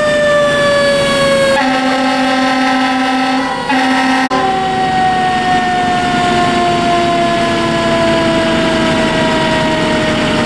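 Fire engine siren that rises quickly and then falls slowly in a long wail, with two long air horn blasts about 1.5 to 4 seconds in.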